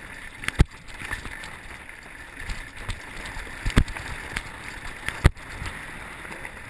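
Wind buffeting the microphone and tyres rolling over loose gravel as a downhill mountain bike runs at speed, with three sharp knocks from the bike jolting over bumps, the first about half a second in, then near the middle and about two-thirds through.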